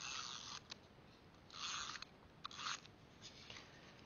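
Ad-Tech handheld tape runner laying dry adhesive on a card panel: a few short, faint rasping strokes, the first about half a second long, with a sharp click before the third.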